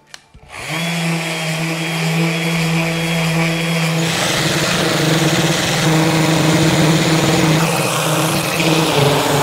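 Random orbital sander running steadily while sanding a freshly glued wood inlay flush on the board. It starts up about half a second in, and its sound turns rougher and hissier about four seconds in.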